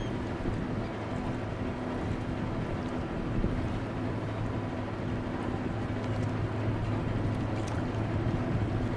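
Steady low drone of ship engines on the passing vessels, getting a little stronger after the middle as the big yacht comes into view, with wind noise on the microphone.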